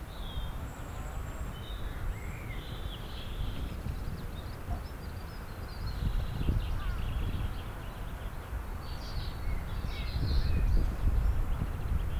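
Birds chirping and calling on and off, busiest in the second half, over a low outdoor rumble like wind on the microphone that grows louder near the end.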